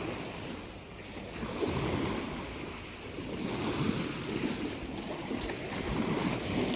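Outdoor rushing noise of wind and water, rising and falling, with a few faint clicks in the second half.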